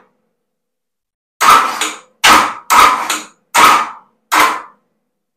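Starter motor of a 406 cubic-inch V8 bumping the engine over in five short bursts, each starting sharply and fading out, to inch the timing mark to top dead centre on number one cylinder.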